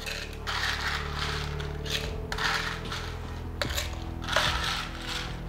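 Ice cubes being scooped and dropped into a metal cocktail shaker, clattering in several separate bursts.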